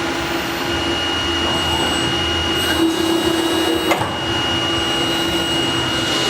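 All-electric CNC tube bender's servo drives running with a steady high whine over a lower hum. The hum grows louder for about a second, then a sharp click comes near the four-second mark.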